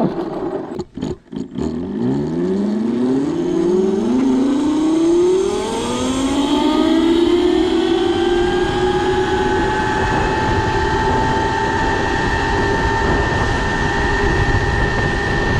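A 6000 W 72 V electric motor on a mini bike whining as it accelerates. After a couple of brief dropouts about a second in, a stack of tones climbs in pitch for several seconds, then levels off into a steady high whine at top speed, over wind rumble on the microphone.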